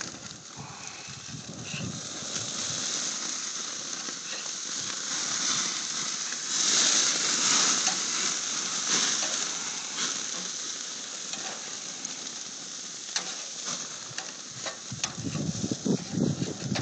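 Hamburger patties sizzling on a hot grill: a steady hiss that swells louder about seven seconds in, with a few sharp clicks near the end.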